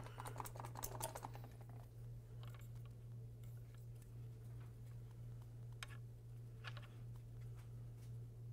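Faint, scattered light clicks, a handful in the first second and a half and a few single ones later, over a steady low electrical hum.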